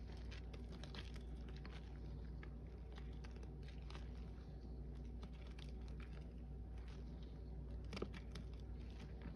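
A soapy sponge squeezed and kneaded by a gloved hand in a steel bowl of Lime Ajax suds: irregular wet squelching and crackling foam, with a sharper squish about eight seconds in.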